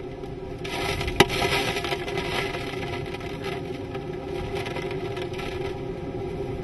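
Hurricane wind and driving rain buffeting a vehicle, heard from inside, with rain spattering on the windshield; a gust swells up about a second in, with a single sharp knock.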